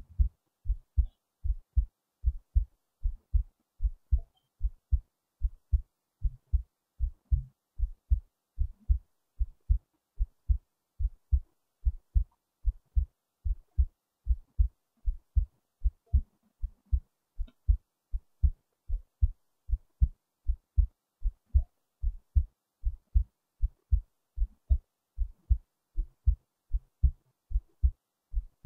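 A person's heartbeat recorded close up: a steady rhythm of low paired lub-dub thumps.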